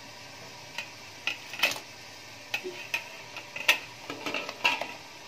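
Metal slotted spoon clinking and knocking against the rim of a metal cooking pot as fried potato pieces are tipped into simmering moong dal: a run of irregular sharp clinks.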